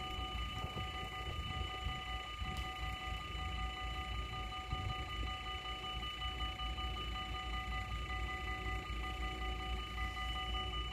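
Dutch AHOB level crossing warning bells ringing without pause while the barriers are down, a steady electronic ringing with a repeating pulse. Wind rumbles on the microphone underneath.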